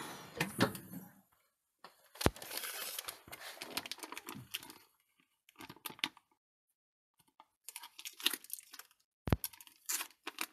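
Crinkling of a freshly vacuum-sealed plastic bag of liquid being handled, in short bursts, with two sharp clicks about two seconds and nine seconds in. At the very start, the tail of the chamber vacuum packer's noise dies away within the first second.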